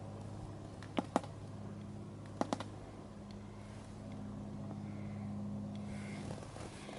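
A steady low mechanical hum, like a distant engine, with two pairs of short sharp clicks, about a second in and about two and a half seconds in.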